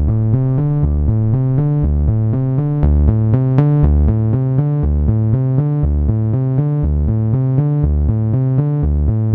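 Electronic synthesizer music with a steady beat, its notes changing in a quick regular rhythm.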